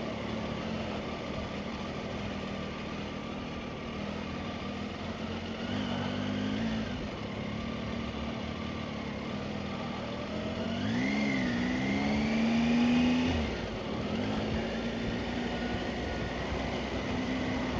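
Motorcycle engine running at low speed in traffic, its pitch rising as it accelerates briefly about six seconds in and again, more strongly, about eleven seconds in.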